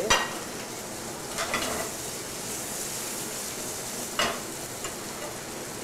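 Perch fillets sizzling steadily in a frying pan of hot oil and butter, with a metal spatula scraping and clinking against the pan three times as the cooked fillets are lifted out.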